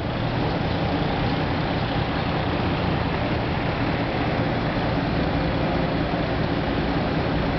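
A vehicle engine idling steadily under a constant haze of noise.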